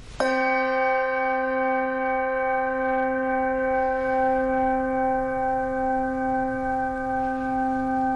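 A singing bowl struck once about a quarter second in, then ringing on as a steady low tone with several overtones and a slow waver.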